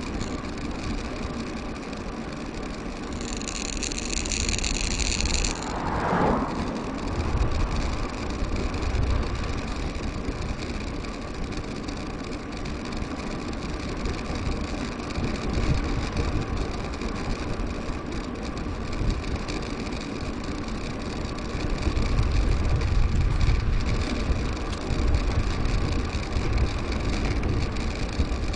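Wind buffeting and rolling tyre noise picked up by an action camera on a moving mountain bike. A high squealing tone sounds for a couple of seconds about three seconds in, and a falling sweep follows about six seconds in.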